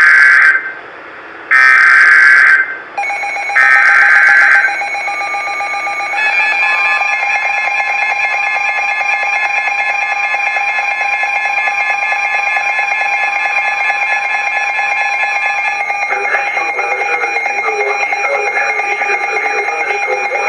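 Emergency Alert System SAME header: three short, loud bursts of warbling data tones about two seconds apart. A steady EAS attention tone follows and holds, with a second set of steady tones joining about six seconds in.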